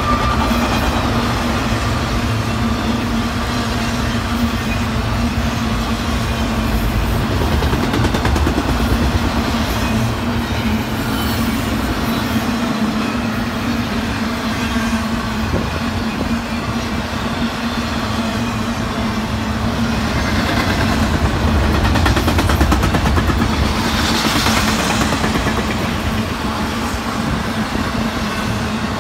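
Intermodal freight cars of a passing train rolling by at speed: a continuous rumble of steel wheels on rail with a steady low hum, getting louder and hissier for a few seconds about 24 seconds in.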